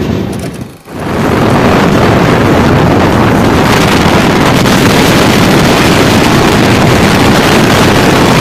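Wind rushing over the microphone held out of a moving train's doorway, over the running rumble of the LHB coaches on the track. The sound dips briefly about a second in, then holds steady and loud.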